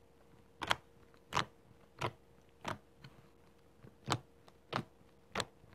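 Fluffy slime with small beads being pressed and poked by hand, giving sharp pops at a fairly even pace of about one every two-thirds of a second, with one longer pause midway, over a faint steady hum.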